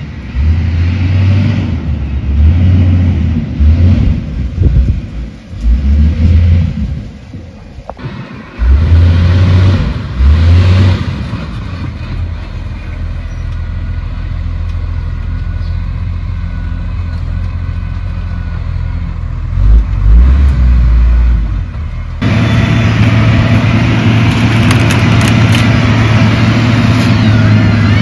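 Motor grader's diesel engine running under load while levelling ground, with uneven surges of low rumble. It turns suddenly louder and steadier about three-quarters of the way through, and a rising whine comes in near the end.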